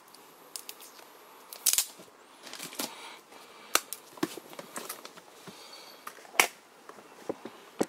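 Plastic gashapon capsule being twisted and pried open by hand: a run of sharp plastic clicks and snaps, the loudest about two seconds in and again about six and a half seconds in.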